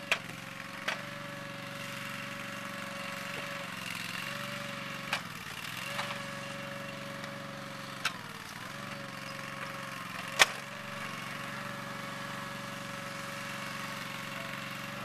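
Dingo compact utility loader with a trencher attachment running steadily as it digs a trench in a lawn. Its engine note dips briefly twice, and a few sharp clicks are scattered through.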